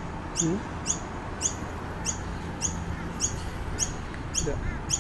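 Noisy miner giving a short, high, falling call over and over, about twice a second.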